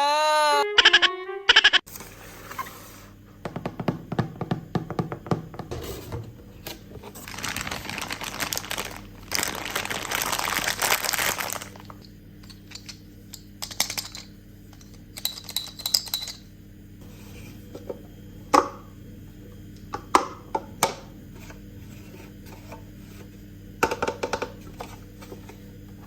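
Toys being handled during an unboxing: scattered clicks and taps, with a few seconds of rustling noise about a third of the way in, over a steady low hum.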